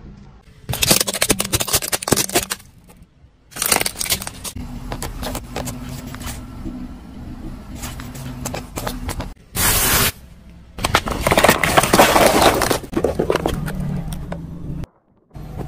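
Car tyre rolling slowly over objects on asphalt and crushing them, heard as several separate bursts of crackling, crunching and scraping, cut abruptly one after another. The objects include thin plastic cups and a crinkly packet, and a low engine hum runs underneath in the middle.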